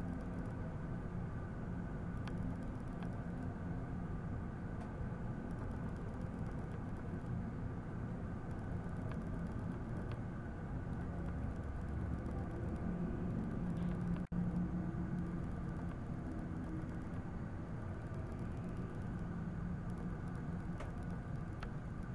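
Steady mechanical hum made of several constant tones over a low drone. A low rumble swells about two-thirds of the way through, and the sound cuts out for an instant just after.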